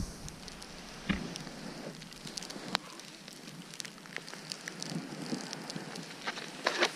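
Snowboard riding through deep powder snow: a soft steady hiss with scattered small crackles and clicks, a sharper click about a second in, another near three seconds, and a short cluster near the end.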